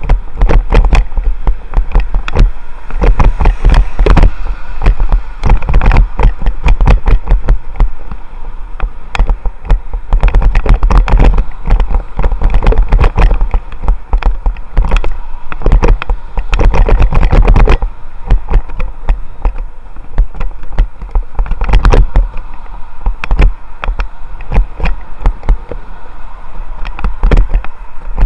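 Heavy, gusty wind buffeting on a helmet-mounted action camera's microphone as a bicycle rides along, with frequent brief knocks and rattles from the ride, over road traffic passing alongside.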